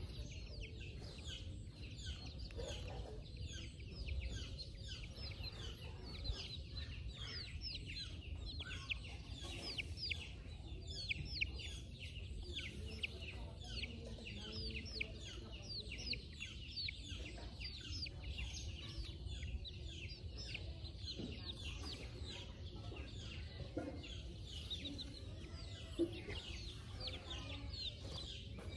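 Chickens clucking and chicks peeping: a continuous stream of short, falling high chirps, over a low rumble.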